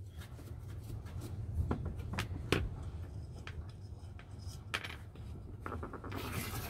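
Light metallic clicks and taps as the bottom hook hinge of a vintage Salter milk scale is worked free from its steel case with a screwdriver. A short scrape comes near the end.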